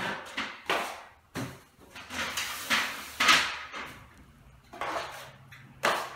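Wide drywall taping knife scraped and knocked against the edge of a metal mud pan as joint compound is loaded and wiped off the blade: a run of short scrapes and clacks.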